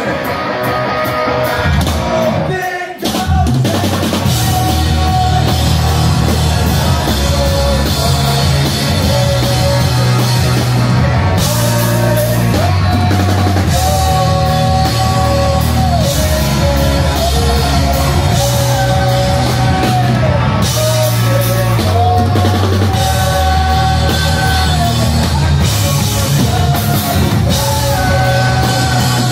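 A live rock band plays loud, with electric guitars, bass and a drum kit. The sound breaks off briefly about three seconds in, then the full band comes back in with the drums.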